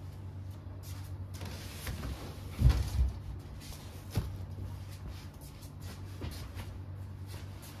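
A few knocks and thumps of something being handled or set down. The loudest are two heavy thumps close together about two and a half seconds in, followed by a sharp knock a second later, over a steady low hum.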